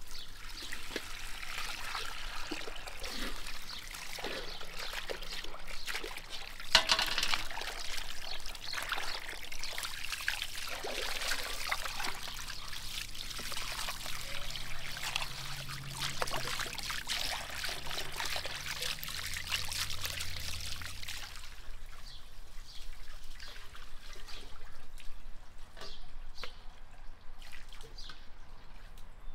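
Running water from a garden hose pouring and splashing over raw beef as it is rinsed by hand in a stainless-steel colander and an enamel basin, with a sharp knock about seven seconds in. The water stops about two-thirds of the way through, leaving only light handling clicks.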